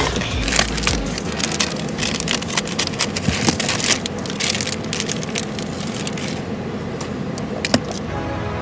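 Plastic packaging being handled and opened: a dense run of crinkles, crackles and small clicks that thins out after about six seconds, with one sharper click near the end.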